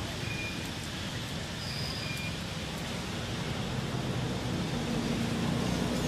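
Steady low rumble of distant road traffic, with an engine hum growing a little louder near the end. A few faint, short, high chirps sound over it.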